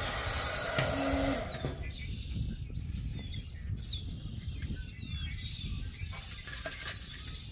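Handheld craft heat gun blowing with a fan hum for the first second and a half, then switched off. After that, wind rumbles on the microphone and a bird gives a series of short, falling chirps.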